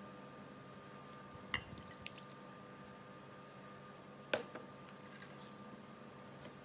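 Faint kitchen handling sounds as melted coconut oil is poured from a glass measuring jug into a glass mixing bowl over honey, with two light glass knocks, the louder one about two-thirds of the way through, over a steady low hum.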